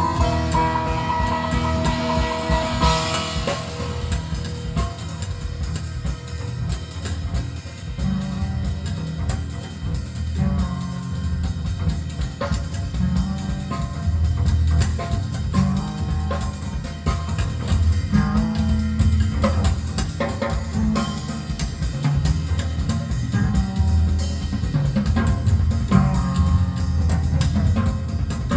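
Recorded music with a drum kit, bass and guitar playing at a steady level.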